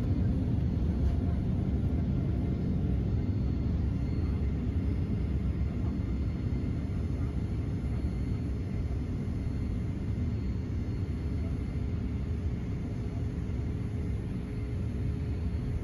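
Steady low rumble of engine and airflow noise inside the cabin of a Boeing 787-8 Dreamliner climbing after takeoff, easing slightly toward the end.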